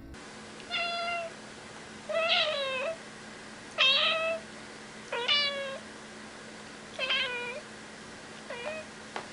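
A cat meowing six times, a short meow about every second and a half, the last one briefer and fainter.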